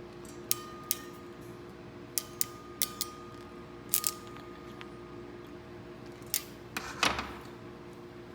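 Sharp metal clicks and clinks, about a dozen, from a hand crimping tool and Weather Pack terminals being handled while wire terminals are crimped; several leave a brief high ring. The loudest, rougher clatter comes about seven seconds in, over a steady low hum.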